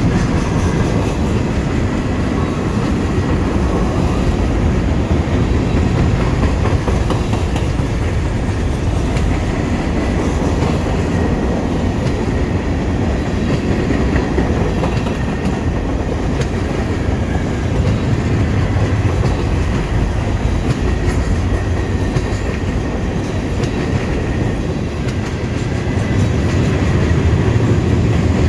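Freight train cars rolling past at track speed: a steady, loud rumble of steel wheels on rail with clatter. Covered hopper cars go by, then gondolas, a little louder near the end.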